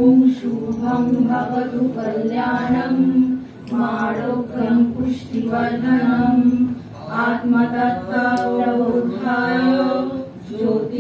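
Women's voices chanting a Sanskrit invocation verse in unison into microphones, in a slow sing-song melody of long held notes broken into phrases.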